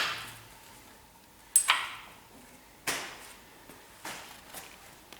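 Hammer blows on steel front-suspension parts: three sharp metallic strikes about a second and a half apart, the second ringing, then two lighter knocks.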